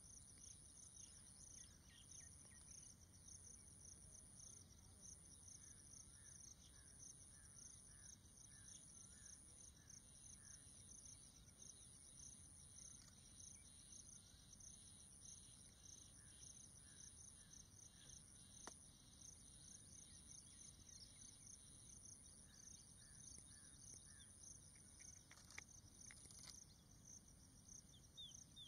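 Faint chorus of crickets and other insects: a dense, steady high trill under a higher buzz that pulses about once a second, with a few soft chirps now and then.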